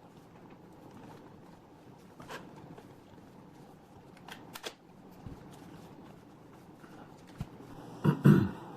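Handling noises from a laptop being worked on: a few light clicks and taps, then a louder double thump near the end.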